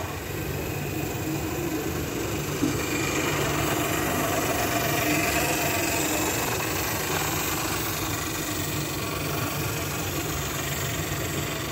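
A 3/4 inch scale live-steam Sentinel steam waggon model running steadily along, its small steam engine giving a continuous fast, even beat.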